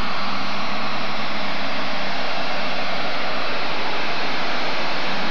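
John Deere super stock pulling tractor's engine at full power under load as it drags the weight sled, a loud steady roar.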